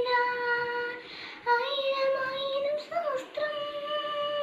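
A young girl singing solo, holding three long sustained notes one after another, each pitched a little higher than the one before; the singing stops at the end.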